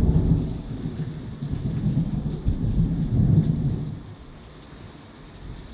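Thunder rumbling over steady rain. The low rolling rumble is loud for about four seconds, then fades, leaving the hiss of the rain.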